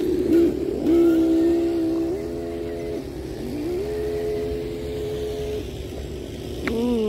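Radio-controlled scale off-road car's motor whining under throttle. The whine holds a steady pitch, rises when the throttle is opened about a second in and again a few seconds later, and begins falling as it slows near the end.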